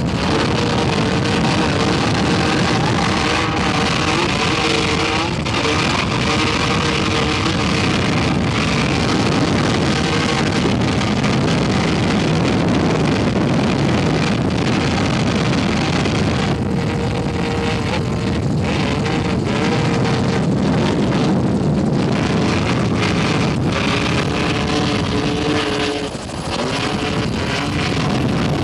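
Helicopter engine and rotor noise heard from on board, loud and steady, with a few steady engine tones that come and go and a brief drop in level near the end.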